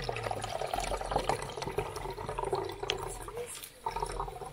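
Water pouring in a steady stream from a soft plastic water bag into a mont-bell camping pot, splashing and filling the pot.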